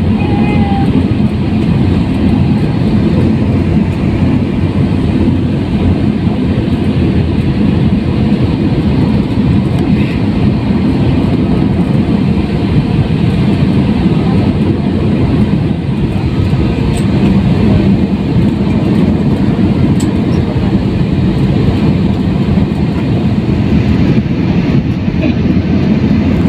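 Steady, loud cabin noise of a jet airliner in flight: the turbofan engines and rushing air make a continuous low rumble.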